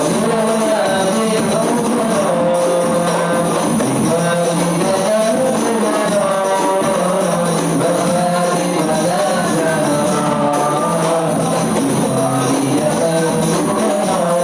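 Rebana frame drum ensemble playing a steady, busy rhythm while a group sings a devotional song over it.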